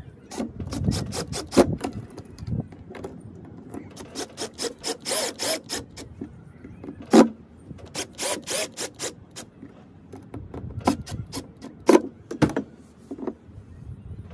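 Cordless drill/driver driving the mounting screws of an outlet into an electrical box, in four short bursts of rapid clicking. A sharp knock about seven seconds in is the loudest sound.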